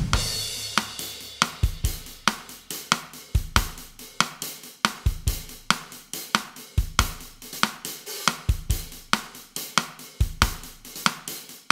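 Drum kit playing a bossa nova groove at 140 beats per minute, a steady pattern of cymbal, snare and bass drum strokes, opening on a cymbal crash.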